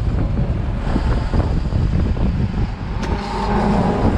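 A fishing boat's engine running steadily, with a sharp click about three seconds in.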